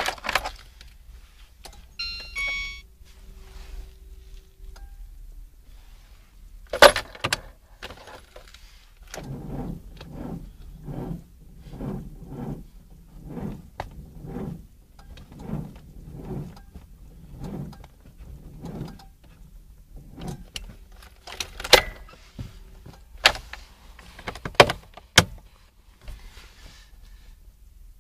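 Car engine being cranked by the starter in −22 °C cold: about fifteen slow, evenly spaced turns over some ten seconds, and the engine does not catch. Ignition keys jangle and click around it, with a short electronic tone near the start.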